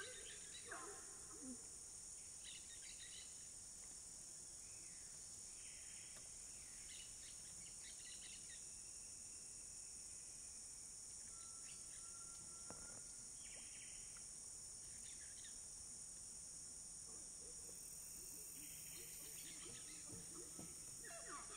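Faint, steady high-pitched chorus of cicadas and other insects, with scattered short bird calls over it and one brief whistled note about halfway through.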